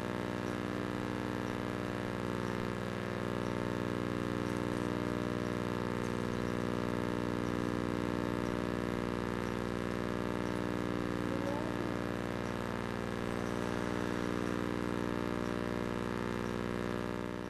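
An engine idling steadily at an unchanging pitch, with faint voices in the background.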